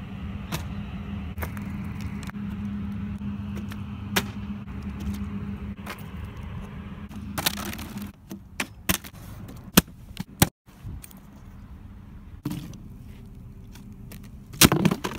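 A steady low hum runs for the first half. A sharp knock comes about halfway through as a plastic water bottle lands on asphalt. Scattered clicks and knocks follow, with a louder clatter near the end.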